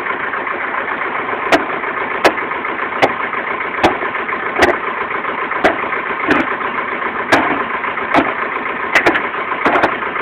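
An engine running steadily at idle, with sharp knocks about once every three-quarters of a second on top of it.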